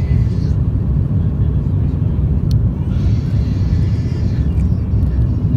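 Steady low rumble of cabin noise inside an Airbus A330-200 on descent, heard from a window seat over the wing: the General Electric CF6-80E1 engines and the airflow over the fuselage.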